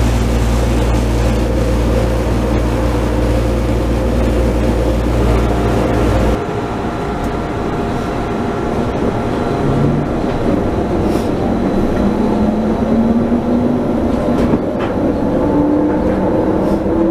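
Rubber-tyred Taipei Metro train running, heard from on board at the front: a steady low rumble that changes abruptly about six seconds in to a lighter running noise, with a motor whine rising slowly in pitch as it goes.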